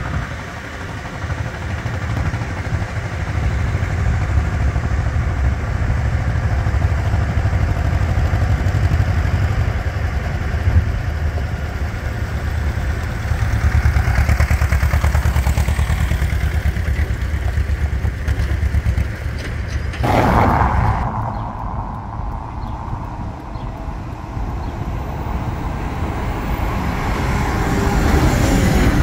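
Diesel engine of an Ursus tractor running with a deep, steady low rumble as it pulls a loaded trailer. About twenty seconds in, the sound changes abruptly to a lighter engine sound from a Case IH Magnum tractor towing a grain cart, growing louder near the end as it approaches.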